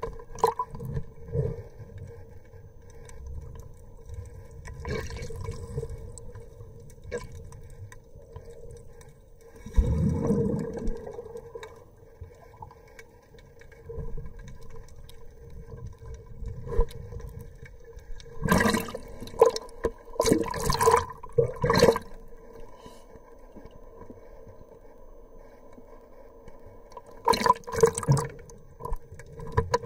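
Muffled water sloshing and bubbling, heard with the microphone underwater. A steady faint hum runs underneath. Clusters of sharp, rushing bubble gushes come about two-thirds of the way through and again near the end.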